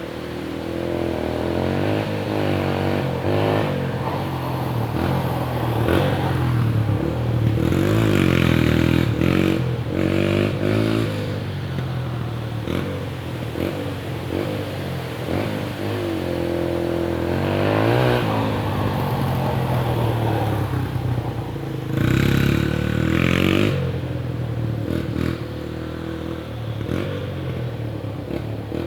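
Dirt bike engine revving up and down over and over as it is ridden, its pitch rising and falling with the throttle, with the loudest revs about a third of the way in and again near three-quarters through.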